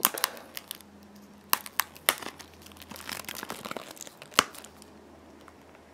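Plastic shrink-wrap on a Blu-ray case being slit with a knife and peeled off, crinkling with sharp crackles scattered through it; the loudest crackle comes about four and a half seconds in.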